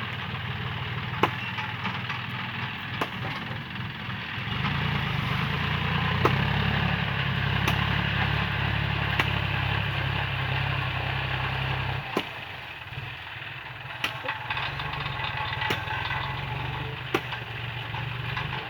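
John Deere 5045D tractor's three-cylinder diesel engine, without a turbo, running steadily, louder for several seconds in the middle. A sharp tick comes about every second and a half.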